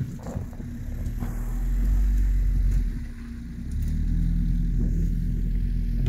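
Quad bike (ATV) engine running under the rider while driving, revving up about a second in, easing off near three seconds, then pulling again and holding steady.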